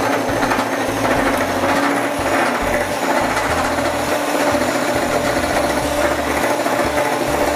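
Electric hand mixer running steadily on high speed, its twin steel beaters whipping egg whites and sugar in a glass bowl.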